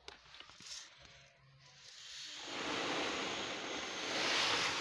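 Wheat grains poured from a steel tray into a woven plastic sack: a steady rush of falling grain that starts about halfway through and grows louder toward the end. Before it comes light rustling as the sack is held open.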